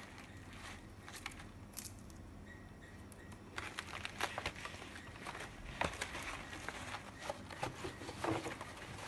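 Quiet paper rustling and soft knocks as a large folder of herbarium sheets is lifted, opened and stood upright, its pages shuffling; the rustles come in scattered short bursts from about a third of the way in.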